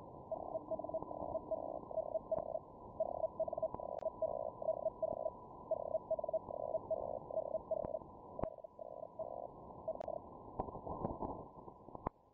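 Feld Hell (Hellschreiber) amateur radio signal heard through a receiver: a buzzing tone keyed on and off in short blocks, about three a second, over band hiss, with a few sharp static clicks. This is a station calling CQ, and the tone stops a little before the end, leaving crackling noise.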